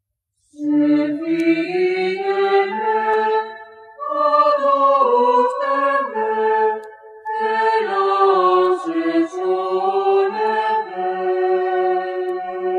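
Background vocal music: voices singing slow, chant-like phrases of long held notes, pausing briefly between phrases.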